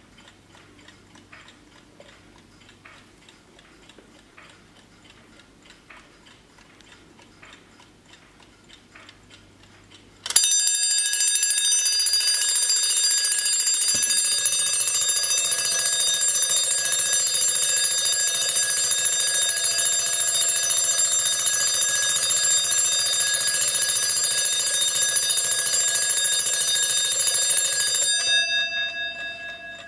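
Vintage Junghans wind-up alarm clock ticking faintly, then its alarm bell bursts into a continuous loud ring about ten seconds in. The ringing runs steadily for about eighteen seconds, stops suddenly, and leaves the bell's tone fading away.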